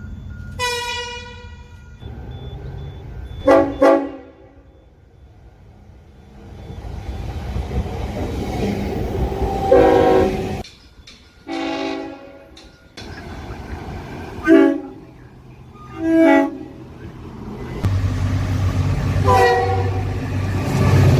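Locomotive air horns sounding in a series of separate clips: a long blast that falls in pitch, a quick double blast, then several more short blasts. Under them runs the low rumble of trains, which grows louder near the end.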